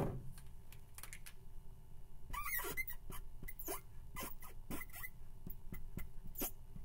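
Marker tip squeaking on a chalkboard in short, irregular strokes as numbers are written, with the longest squeaks about two and a half seconds in. A sharp click comes right at the start.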